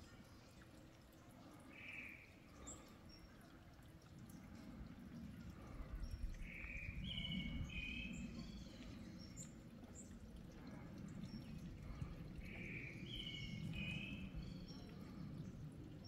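Songbirds calling over the rush of wind, which swells and fades. One bird sings the same short phrase of a few notes twice, about six seconds apart, and a single call comes about two seconds in.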